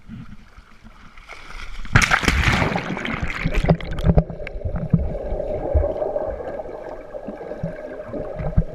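Water splashing as a waterproof action camera goes under the sea surface about two seconds in, then the muffled rushing and gurgling of water heard through the submerged camera housing while a swimmer moves nearby.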